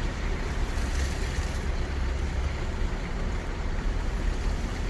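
Steady road noise inside a moving car: a low engine and tyre rumble with an even hiss from the tyres on the road.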